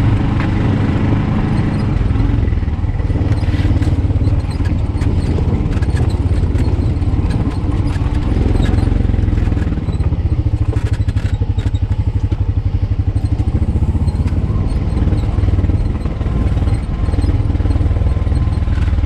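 Honda Pioneer 520 side-by-side's single-cylinder engine running steadily, with occasional knocks and rattles over it.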